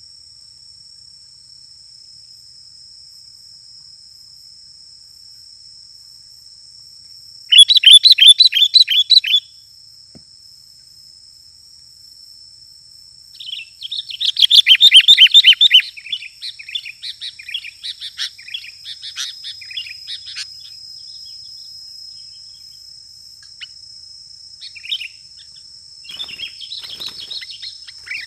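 Sooty-headed bulbul (kutilang) calling in fast chattering bursts of rapid repeated notes: one burst about a quarter of the way in, a louder one around the middle that trails off into scattered notes, and short bits near the end. A steady high insect drone runs underneath.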